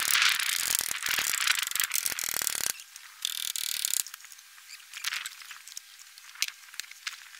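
Packed snow crunching and scraping: a dense crackle for the first two and a half seconds, a shorter hissing scrape about three seconds in, then a few scattered crunches.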